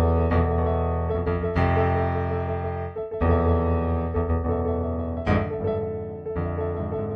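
Slow improvised solo piano music: sustained chords and single struck notes, a new chord or note every second or so.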